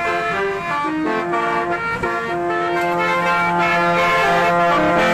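Vintage-style musical car horn playing a tune: several tones sound at once, held and changing pitch in steps.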